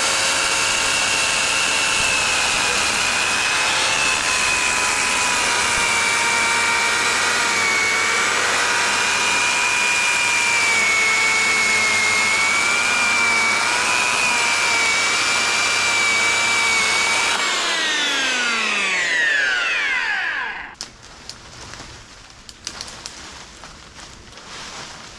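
Chainsaw cutting through a cherry tree branch, running at steady full speed for about seventeen seconds. Its pitch then falls over a few seconds as it winds down and stops. A few faint knocks and rustling follow.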